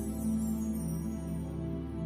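Slow music of long held notes over a steady low drone.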